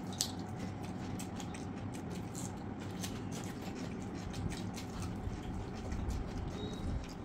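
Eating sounds: fingers mixing rice and curry on steel plates and mouths chewing, giving many small wet clicks and smacks over a steady background hum.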